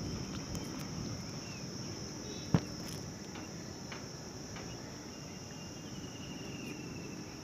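Insects trilling in a steady high chorus, over low rustling handling noise, with one sharp click about two and a half seconds in.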